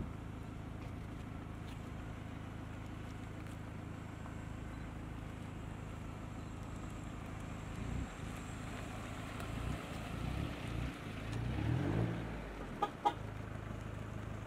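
Slow-moving vehicles, an Isuzu pickup followed by a Toyota ambulance, approach and pass at low speed. Their engines grow louder from about eight seconds in over a steady low hum. Two short sharp sounds come near the end.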